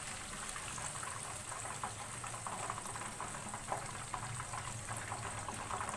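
Chicken leg pieces deep-frying in hot oil near the end of their first fry: a steady sizzle dotted with many small crackles.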